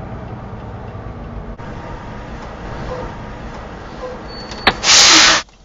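Semi truck cab noise with the diesel engine running as the truck rolls to a stop. Near the end there is a click, then a loud hiss of air lasting about half a second that cuts off sharply: the truck's air parking brake being set.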